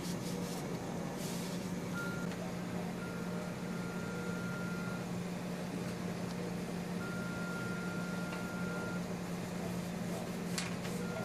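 Electronic beeping from hospital equipment: one steady high tone, each beep held about two seconds with gaps of a second or two between, over a steady low hum of room equipment.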